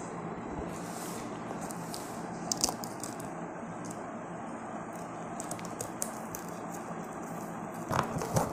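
Steady background hiss with faint clicks and rustles from a cardboard parcel being handled, and a louder burst of rustling near the end.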